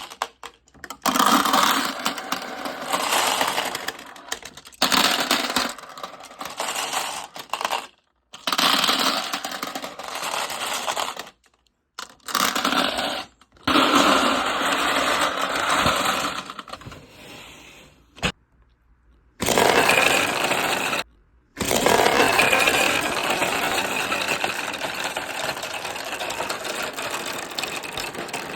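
Many marbles and balls rolling and clattering down a handmade marble run, a dense continuous rattle of small hard balls on the track. The sound breaks off abruptly into silence several times for a second or less.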